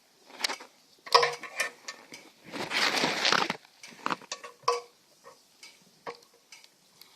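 Small metal clicks and clinks of a motorcycle oil-tank dipstick cap being worked and the dipstick being handled, with about a second of rag scrubbing roughly two and a half seconds in as the dipstick is wiped.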